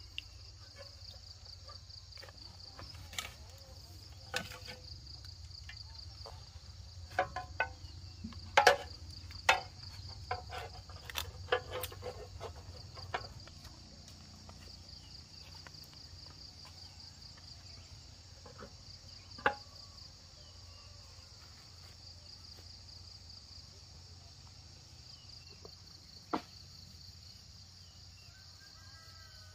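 Insects chirring steadily in a high, pulsing trill. Over it comes a cluster of sharp knocks and clicks from about three to thirteen seconds in, then two lone knocks later, louder than the insects.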